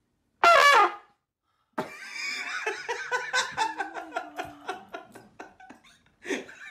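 A sudden, very loud, shrill shriek lasting about half a second, about half a second in, followed after a short gap by continuous laughter.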